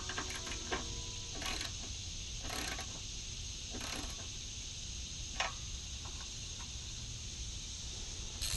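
Hand tools at work: a sharp click, then a few short ratcheting rasps about a second apart and scattered light clicks, over a steady high hiss.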